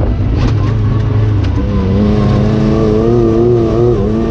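UTV engine running hard, its pitch wavering and shifting with the throttle, with a couple of short knocks in the first second or two.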